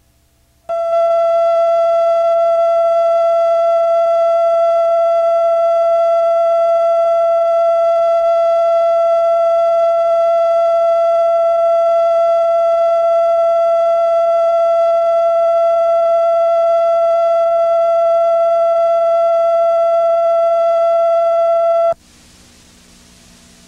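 Steady single-pitch test tone played with the color bars, switching on abruptly about a second in and cutting off abruptly near the end, leaving a faint hiss.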